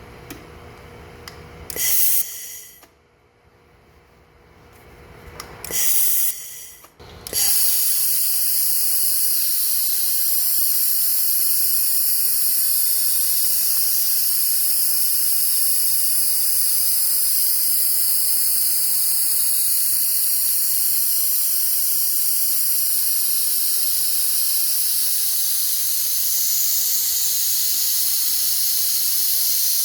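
Handheld fiber laser welder working on a 3 mm steel pipe, with its shielding gas hissing. Two short bursts of hiss come about two and six seconds in, then a steady, high hiss runs from about seven seconds on.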